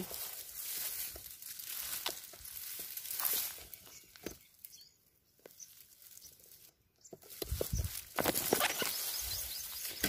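Rustling and crackling of leafy peanut plants being pulled and handled, with fabric brushing against the phone's microphone. It drops to near silence in the middle for a couple of seconds, then the rustling picks up again.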